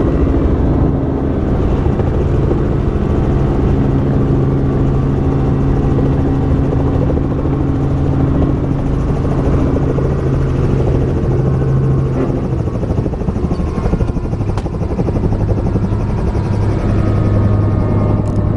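Small helicopter's engine and rotor running on the helipad after landing, heard from inside the cabin: a loud, steady drone whose pitch drops lower about thirteen seconds in.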